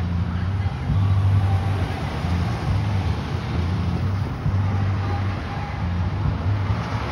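Road traffic passing: a steady low rumble of car engines and tyres that swells and fades.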